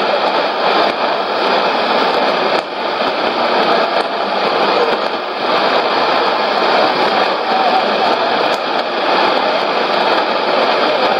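Shortwave AM broadcast on 6135 kHz heard through a Sony ICF-2001D receiver: a steady rush of static and fading noise from a weak signal, with no clear speech.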